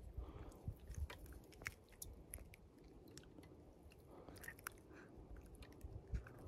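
Faint, irregular small crunches and clicks of handling close to the microphone.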